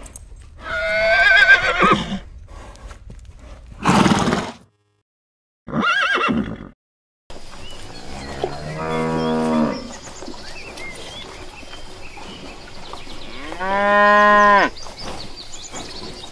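Horse calls near the start: a whinny with a wavering pitch, then shorter calls. Then cattle mooing twice, a long moo about 8 s in and a louder one about 14 s in.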